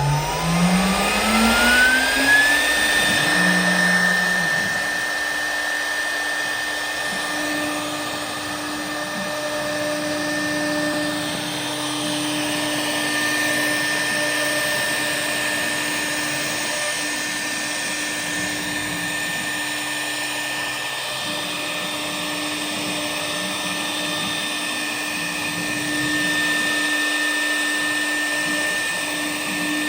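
K1-1325 CNC router's spindle motor spinning up, its whine rising in pitch for about two and a half seconds. It then runs at a steady speed with a constant high whine over a hiss of air.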